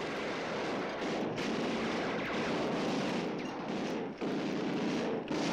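Sustained rapid fire from a tripod-mounted, water-cooled Browning M1917 heavy machine gun on a film battle soundtrack: a dense, unbroken stream of shots with brief breaks about a second in and about four seconds in.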